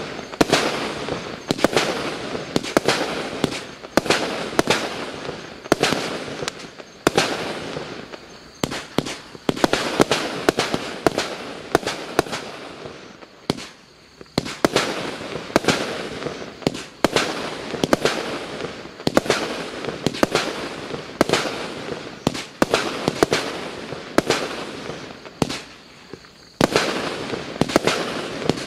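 Klasek C212MF/C 212-shot fireworks cake firing: a continuous run of sharp bangs, several a second, over constant crackling, with a short lull about thirteen seconds in and another just before the end.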